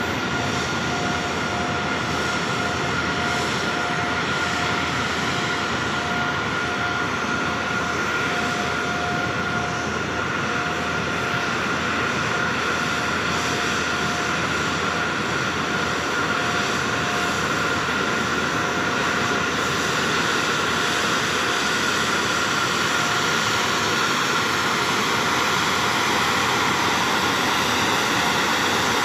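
Boeing 737-800's CFM56 turbofan engines running steadily: a loud rush of jet noise with a steady whine, edging slightly louder toward the end.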